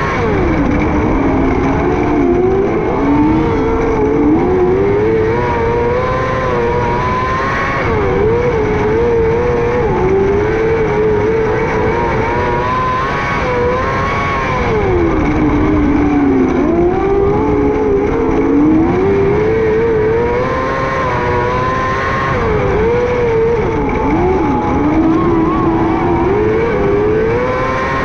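A 600cc micro sprint car's four-cylinder motorcycle engine racing at high revs. Its pitch falls and climbs back up every six or seven seconds as the throttle is lifted and reapplied, lap after lap.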